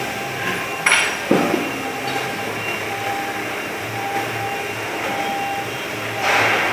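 A sharp knock about a second in, over a steady background noise and faint hum, with a short burst of hiss near the end.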